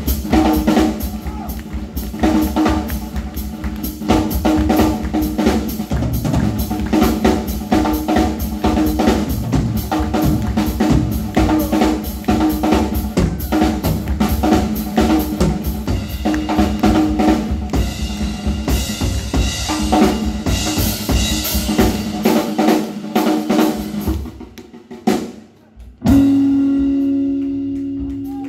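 Live small band with drum kit, upright bass and electric guitar playing a driving, fast beat, the drums loudest. About two seconds before the end the playing breaks off and a long note is held to close the tune.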